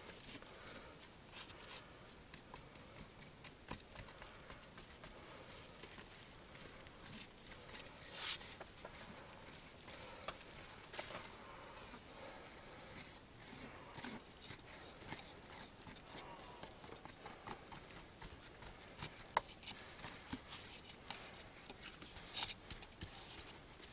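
Knife blade scraping and picking at packed cave dirt: a faint string of scratches and small ticks, busier near the end.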